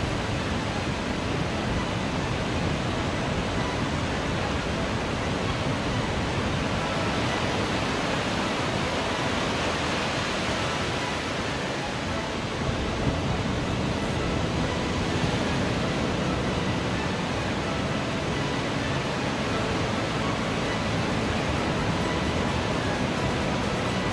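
Ocean surf breaking and washing up a sandy beach: a steady, unbroken rushing noise.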